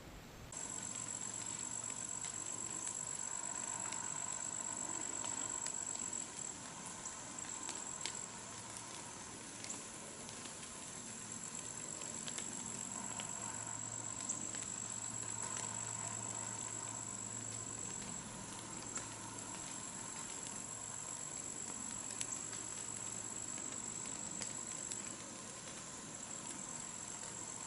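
Insects calling in a steady, high-pitched chorus, with scattered faint ticks throughout.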